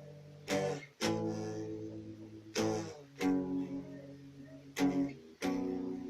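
Slow guitar music: chords strummed in pairs about every two seconds, each left to ring out.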